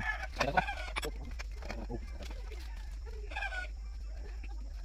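Chickens calling a few short, falling calls, with a single sharp clink of a tool about a second in.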